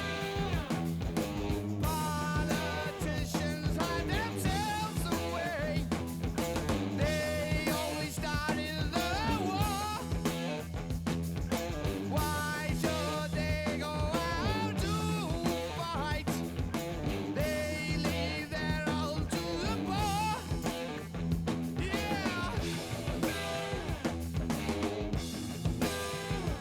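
Rock song with singing, guitar and drums played back through a 1967 Sansui TR-707A all-transistor receiver, freshly recapped and fitted with new tone and balance controls.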